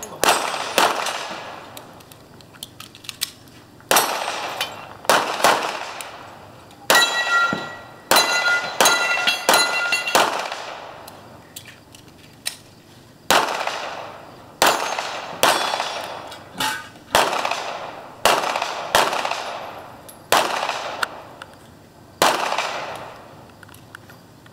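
Handgun shots at steel targets: about twenty shots in uneven strings with short pauses between. Struck steel plates ring for a few seconds after the shots about a third of the way in.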